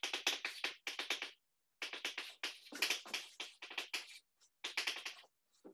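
Chalk writing on a blackboard: quick scratchy strokes and taps, in three runs with short pauses between.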